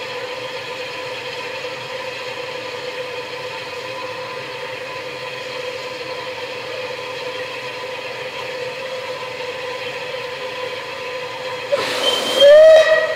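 Steady rumble of a train with a faint steady tone, then near the end a loud locomotive whistle blows briefly, rising in pitch as it opens.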